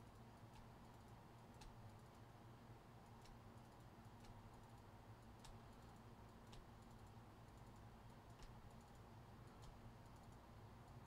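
Near silence: faint, scattered computer keyboard clicks, roughly one a second and irregular, over a low steady hum.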